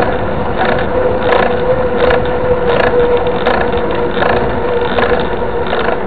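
Mountain bike rolling fast on asphalt: steady tyre hum and rushing air, with a regular pulse about every three-quarters of a second.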